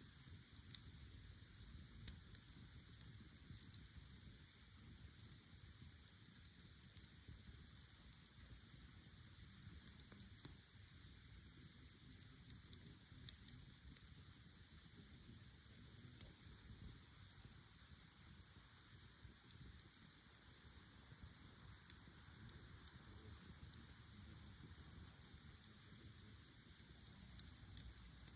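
Crickets chirring in a steady, unbroken high-pitched drone on a warm summer night, with a few faint crackles from the campfire.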